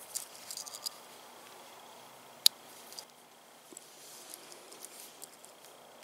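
Small metal clicks of a cheap folding multi-tool being handled as its tools are folded and the scissors opened out: a quick run of light clicks at the start, one sharp click about two and a half seconds in, the loudest, then a few faint ticks.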